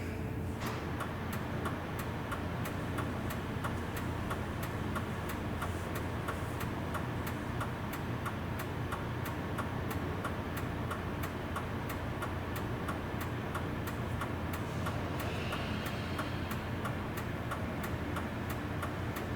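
Chevrolet Express / GMC Savana turn-signal flasher ticking evenly, about three ticks a second, over a low steady hum, as the newly replaced front turn-signal bulbs blink.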